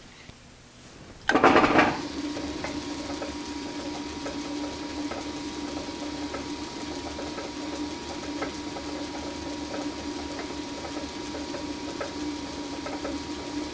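Belt-driven South Bend metal lathe starting up with a brief loud whir a little over a second in, then running steadily with a low hum, a fainter high whine and light regular ticks, its spindle turning at about 634 RPM.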